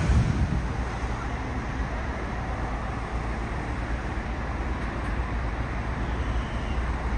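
Windhoff multi-purpose vehicle pair rumbling steadily along the track as it pulls away: a low diesel drone with wheel and rail noise.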